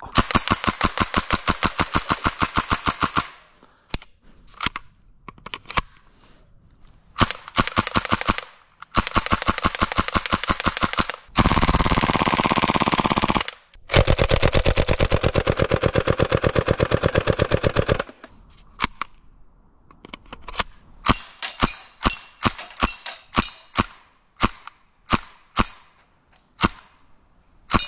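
Gas blowback airsoft Tec-9 firing. There are long full-auto bursts of rapid shots, each shot with the slide's blowback clack. Scattered single semi-auto shots fall between the bursts, and near the end come more single shots and short bursts.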